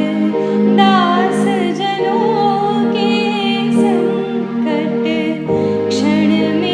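Slow music: sustained chords held under a high, wavering melody line.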